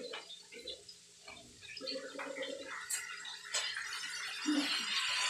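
Cooking noises at a gas stove: a few short low sounds of pans and utensils being handled, a sharp click about three seconds in, then a hiss from the lit burner and pan that grows louder toward the end.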